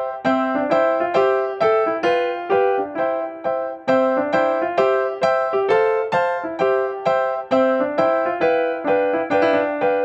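Background piano music: an even run of single notes, about two a second, each fading before the next.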